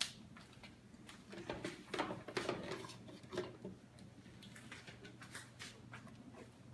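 Faint, scattered knocks and clinks of kitchen dishes and utensils being handled.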